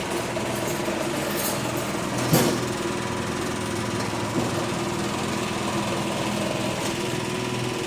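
Craftsman Quiet Series two-stage snowblower engine running steadily, without surging, on its test run after a complete fuel-system and carburetor overhaul. A single sharp clack sounds about two and a half seconds in.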